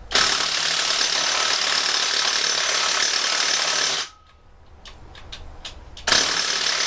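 Impact wrench hammering on the Mazda 12A rotary engine's eccentric-shaft pulley bolt in two long bursts, stopping for about two seconds in between. The stuck bolt has been heated to help break it loose.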